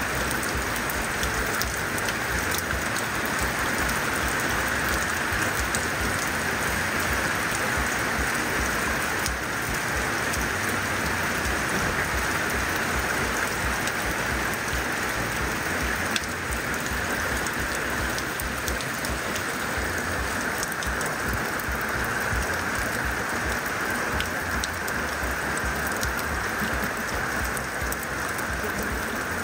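Heavy monsoon rain falling steadily, a dense even hiss with scattered drop ticks.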